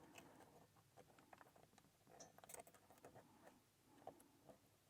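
Near silence with faint, scattered small clicks of a combination lock's number wheels being turned by hand as each digit is felt for its notch.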